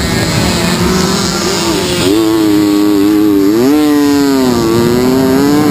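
Small two-stroke moped (mofa) engines running hard at high revs; from about two seconds in one engine's whine takes over, climbs in pitch a little after three and a half seconds, then eases down.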